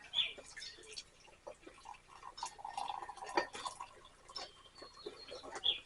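Tea being poured from a teapot into a mug: a short, steady trickle of liquid from about two seconds in, with light clinks and drips around it.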